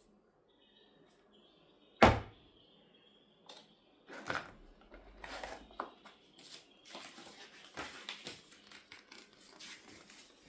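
A single loud thunk about two seconds in, then a run of small irregular knocks, clicks and rustles, like objects being handled and set down.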